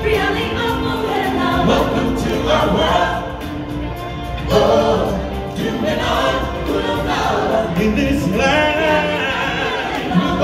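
A group of singers performing a choral song over backing music in a live stage show, heard from the audience seating.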